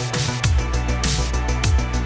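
Electronic background music with a steady, fast drum beat and heavy bass.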